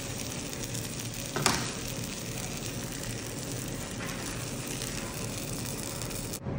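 Pancake batter sizzling in a hot nonstick frying pan as it is poured and spread with a ladle, with one sharp tap about a second and a half in. The sizzle cuts off suddenly just before the end.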